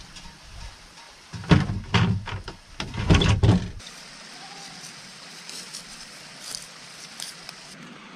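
A run of clunks and knocks lasting about two seconds, from a deep-cycle battery being handled and lifted out of a utility vehicle's cargo bed among plastic buckets. After that comes a quieter stretch with faint ticks.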